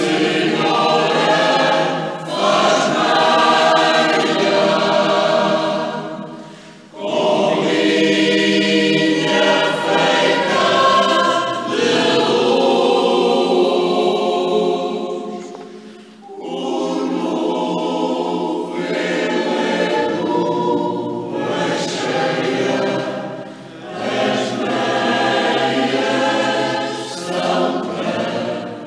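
Mixed choir of men's and women's voices singing in parts, in phrases separated by brief pauses, the longest about seven seconds in and about sixteen seconds in.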